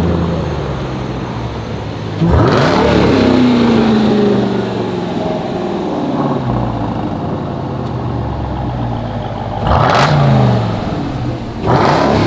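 Jeep Grand Cherokee Trackhawk's supercharged Hemi V8 idling and revved three times, freshly fitted with a cold air intake. Each blip jumps up sharply and falls slowly back to idle: one about two seconds in, a second near ten seconds and a third near the end.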